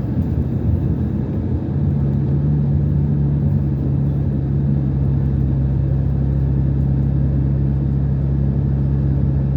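Car driving at steady speed, heard from inside the cabin: a steady low engine and road rumble, with a steady low hum setting in about two seconds in.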